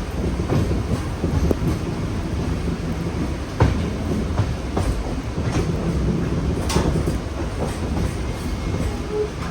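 Mumbai suburban local (EMU) train rolling at low speed, a steady rumble of wheels on rail broken by irregular clunks as the wheels cross points and track joints. The loudest knock comes a little over a third of the way in.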